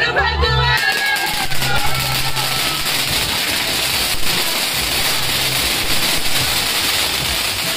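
Fireworks giving off a dense, steady hiss full of fine crackles, which starts as music cuts out about a second in.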